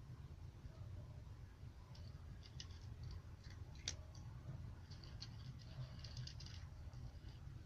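Cat crunching dry kibble: faint, irregular crunches and clicks in small clusters, with one sharper click about four seconds in.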